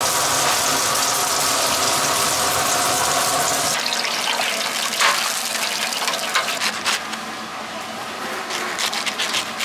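Battered jeon sizzling hard in oil on a flat griddle. The sound cuts off abruptly a few seconds in to quieter sizzling with scattered crackles, and near the end a run of crisp crunches as a knife cuts through fried battered green chillies.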